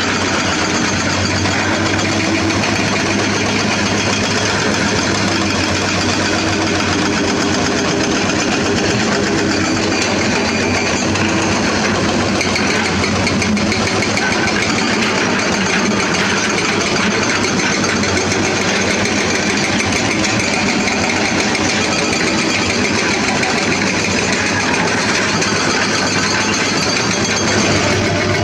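Diesel engines of hydraulic crawler excavators running steadily while digging, a continuous even drone.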